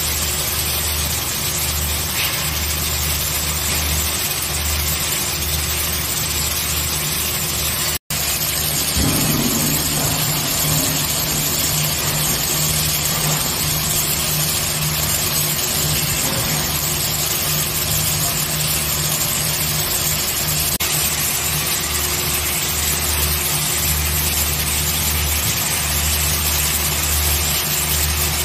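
Gantry arc welder running two torches along a steel crane boom: the steady hiss of the welding arcs over a low, unevenly pulsing machine hum. The sound cuts out for an instant about eight seconds in.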